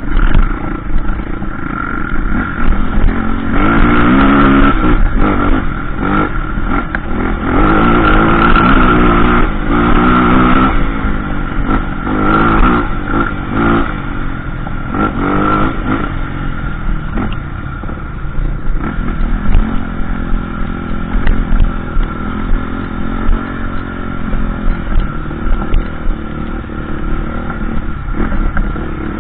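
Trail motorcycle engine being ridden off-road, its revs climbing and dropping over and over in the first half, then running steadier, with low wind rumble and clattering knocks from the rough ground.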